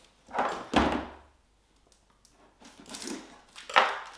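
Board game components and packaging being handled: rustling with a heavy knock about a second in, a pause, then more rustling and a sharp knock near the end.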